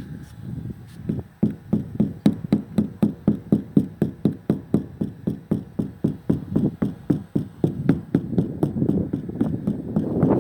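Rapid, even knocking, about four strokes a second, becoming louder and busier near the end.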